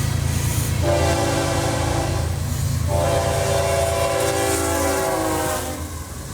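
Diesel freight locomotive sounding its multi-chime air horn in two blasts, a shorter one then a longer one, over the low, steady rumble of the passing train.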